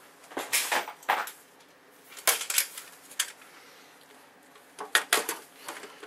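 Sheet-metal side panel of a PC tower being handled and fitted onto the case: scattered metallic clanks and scrapes, a cluster in the first second or so, a couple more around two to three seconds in, and a quick run of clicks near the end as it goes into place.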